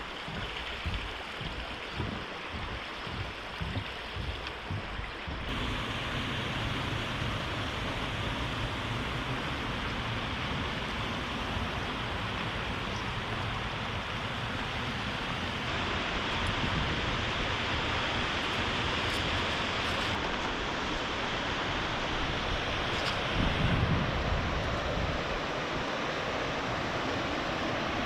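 Rushing water of a waterfall and creek, a steady rush that changes abruptly about five and sixteen seconds in, with a brief louder low rumble near the end.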